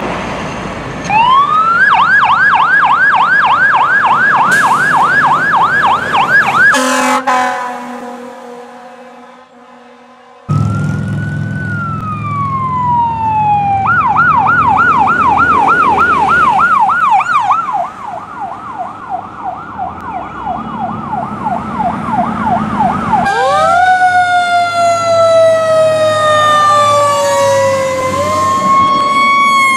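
Fire engine and police car sirens, loud and close. A fast electronic yelp starts about a second in, about four cycles a second, and fades away. Then a slow falling wail turns back into the yelp over a diesel engine's rumble, and near the end several long rising and falling wails overlap.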